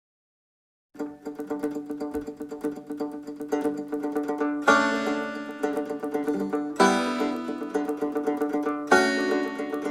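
Instrumental background music that starts about a second in after dead silence: quickly picked string instruments, with a strong accented chord about every two seconds.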